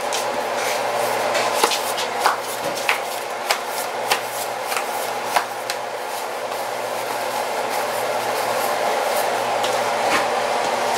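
Hands pressing and patting pizza dough out on a floured countertop: soft taps about every half second for the first five seconds or so, then fewer as the dough is lifted and stretched by hand. A steady hum runs underneath.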